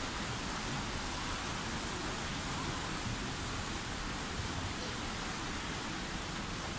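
Steady wash of noise in an indoor swimming pool hall, with swimmers splashing in the lanes and no single splash standing out.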